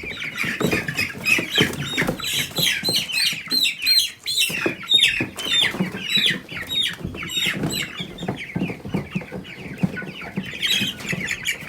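A flock of Cornish Cross broiler chickens peeping loudly, many short, high, falling calls overlapping, thinning a little midway and crowding again near the end, with scattered bumps and scuffling beneath as the birds are caught.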